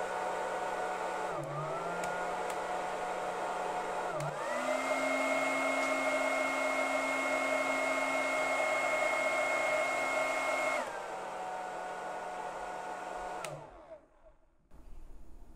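Hair dryer running and switched between speed settings: its motor whine steps down about a second and a half in, jumps to a higher, louder setting about four seconds in, drops back after about eleven seconds, then winds down and stops near the end.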